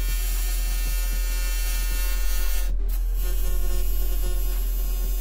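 AC TIG welding arc tack-welding aluminum angle: a steady electric buzz with a strong low hum.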